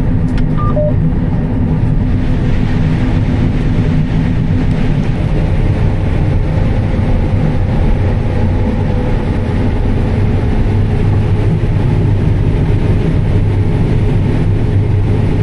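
John Deere S780 combine running steadily while harvesting corn, a continuous machine drone heard from inside the cab. A couple of short electronic beeps sound about half a second in.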